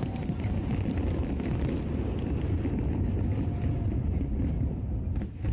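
Fireworks going off in rapid succession: a continuous low rumble of bursts with many short sharp crackles and pops over it.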